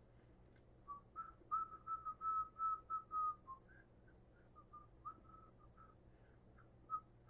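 A person whistling a simple tune softly: a run of held notes for a couple of seconds, then a few scattered short notes.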